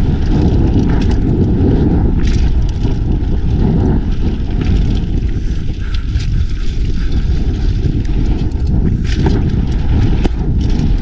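A mountain bike rolling fast down a dry dirt trail, heard through the action camera's microphone as a steady heavy wind rumble. Tyres crunch over gravel, and the bike rattles on the bumps, with sharper rattles about two seconds in and twice near the end.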